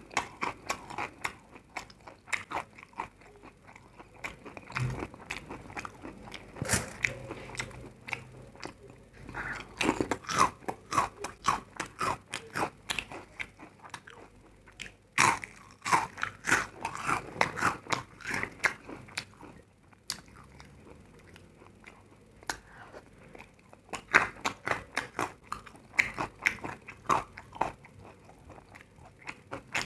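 Close-miked biting and chewing of crisp food: runs of sharp crunches in bursts, with softer chewing in the pauses between them.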